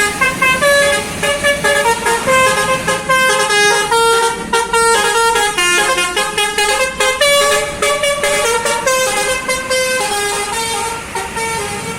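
Telolet basuri musical bus horn playing a fast tune: a long run of short horn notes hopping up and down in pitch.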